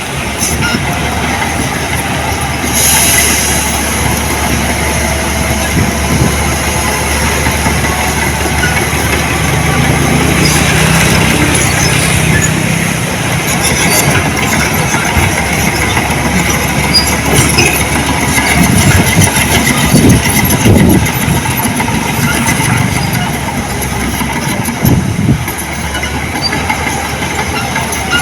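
Diesel earthmoving machinery running steadily, with metallic clanking and rattling; a few louder clanks stand out.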